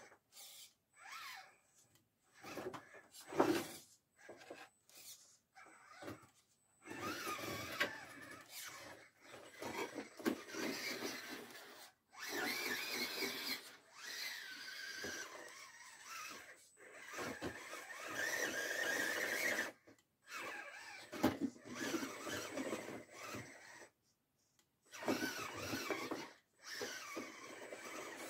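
Electric motor and gearbox of an RGT Bowler 1/10-scale RC crawler whining in stop-start bursts, the pitch rising and falling with the throttle. The tyres scrape on the wooden boards and dirt, with a few knocks in the first seconds.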